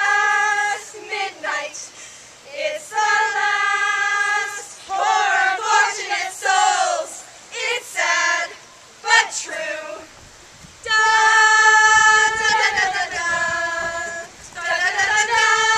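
Singing: several voices sing a song in phrases of long held notes with short breaks between them.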